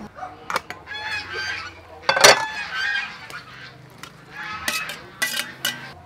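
Geese honking in several runs of harsh calls, mixed with a few sharp metal clinks from an aluminium pot lid and tongs on a metal plate; the loudest clink comes about two seconds in.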